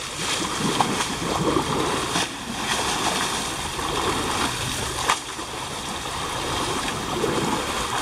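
Water splashing and sloshing in a shallow river as people throw handfuls of water onto bathing Asian elephants, with a few sharper splashes over the steady wash of the water.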